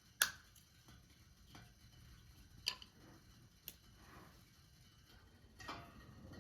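A handful of sharp, isolated clicks and taps, five in all, the first the loudest, over a quiet room background.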